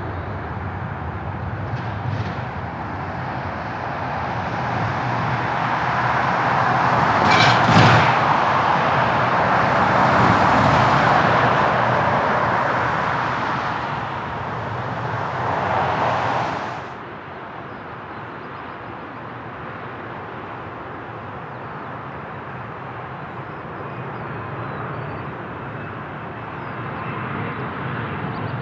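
Jet airliner engines passing, a rising and falling rush of engine noise with a brief crackle at the loudest point. About seventeen seconds in it cuts off suddenly to a quieter steady rumble.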